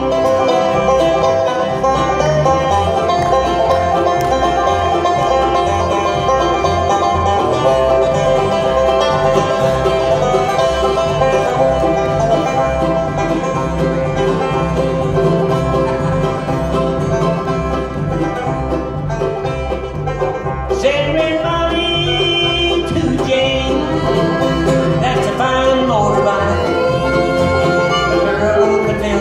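Bluegrass band playing an instrumental passage on banjo, fiddle, mandolin, acoustic guitar and upright bass, with the bass keeping a steady beat. A new, higher lead line comes in about three quarters of the way through.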